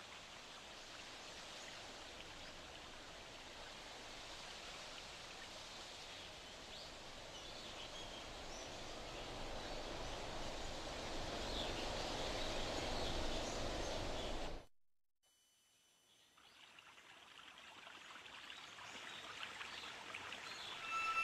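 Rushing ambient noise on a film soundtrack, an even hiss that swells steadily louder. It cuts off abruptly about fifteen seconds in, then fades gradually back in.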